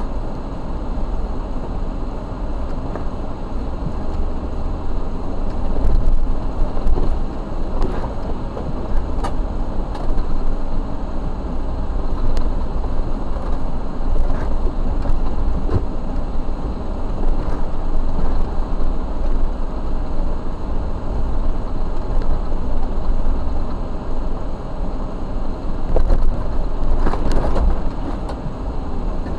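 Jeep engine running at low speed as it crawls over a rough forest trail, a steady low rumble with scattered knocks and rattles.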